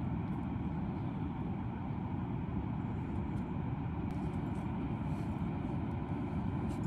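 Steady low rumble of wind buffeting the microphone, with a few faint light ticks in the second half.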